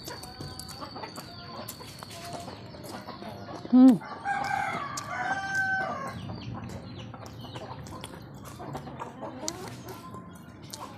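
A rooster crows once in one long call beginning about four seconds in, right after a brief loud low sound; softer chicken clucking and small clicks are heard around it.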